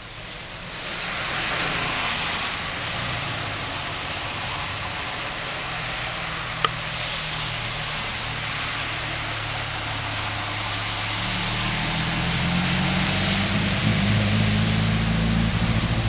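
Car tyres ploughing through a flooded road, with a loud steady hiss of spraying water. A vehicle's engine grows louder in the second half, with one sharp click near the middle.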